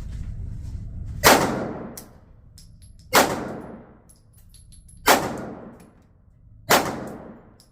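Four shots from a 9mm Glock 19 Gen 5 pistol, fired slowly about two seconds apart, each crack followed by a long ringing decay.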